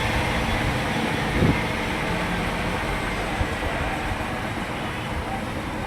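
Lathe machine running with a steady mechanical hum, with one short knock about a second and a half in.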